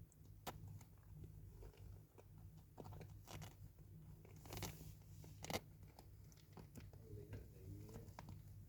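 Faint chewing and crunching, with scattered sharp crunches a second or so apart, as of a cat eating; a brief soft low sound comes near the end.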